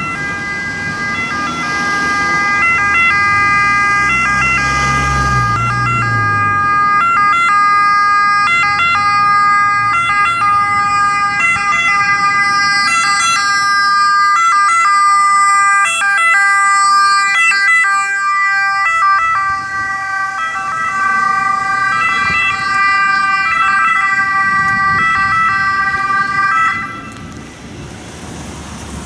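Ambulance siren sounding on a Fiat Ducato ambulance driving on an emergency call, a loud repeating pattern of steady tones without a rising or falling wail. A low vehicle rumble passes a few seconds in, and the siren cuts off about 27 seconds in, leaving traffic noise.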